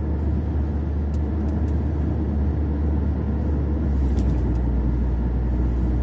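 Steady road noise of a car driving at speed, heard inside the cabin: a deep, even rumble of tyres and engine.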